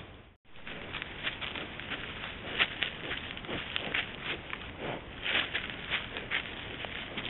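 Wild boar foraging in grass right at the microphone: irregular rustling, crackling and clicking as they root and shuffle about. There is a short break in the sound about half a second in.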